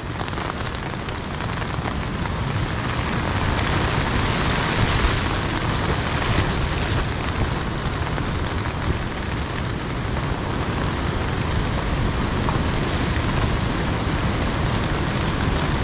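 Heavy rain drumming on a tent's fly, heard from inside the tent, with a steady low rumble under it.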